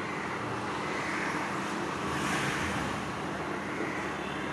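Steady road traffic noise, swelling as vehicles pass, loudest about two seconds in.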